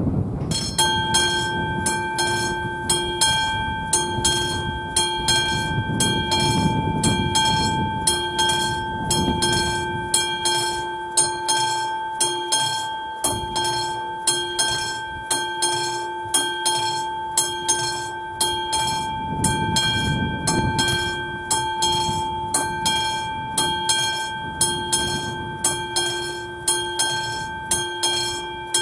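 Classic electromechanical warning bell of a Czech railway level crossing starting about half a second in and ringing continuously with rapid, evenly repeated strikes, the crossing's warning that a train is approaching.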